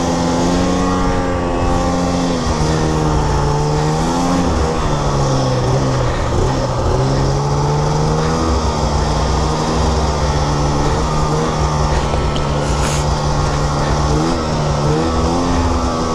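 Snowmobile engine running under varying throttle, its pitch dipping and climbing several times as the throttle is eased and opened again.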